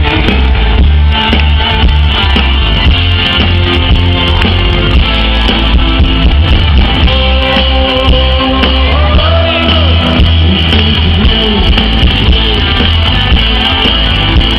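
Live rock band playing loudly through a PA: electric guitar over bass, keyboards and drums, with a steady heavy low end.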